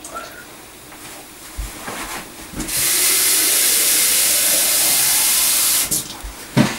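Kitchen tap turned on full, running into a container for about three seconds, then shut off. There are a few soft knocks before it and a sharper knock near the end.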